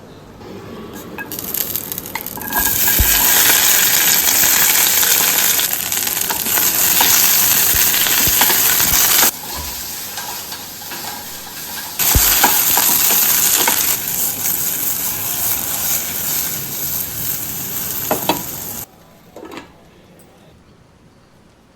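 Food sizzling as it fries in a pan, with occasional taps and scrapes of a utensil stirring it. The sizzle drops away suddenly and comes back a couple of times, then stops short a few seconds before the end.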